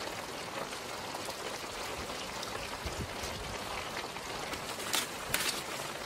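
Vegetables sizzling in a hot wok over a wood fire: a steady crackling hiss, with a few sharper pops near the end.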